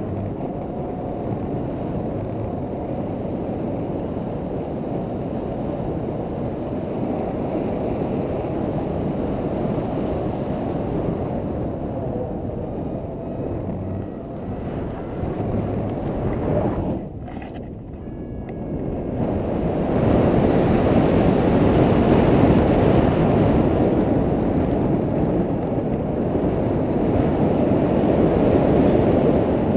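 Wind buffeting a GoPro's microphone in flight on a tandem paraglider: a steady low rumble that drops away briefly about seventeen seconds in, then comes back louder.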